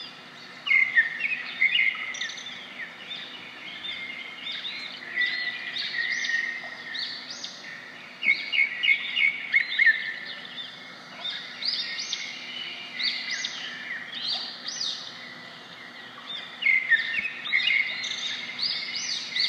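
Birds chirping: many short, high chirps, each dropping in pitch, in busy spells with brief lulls between.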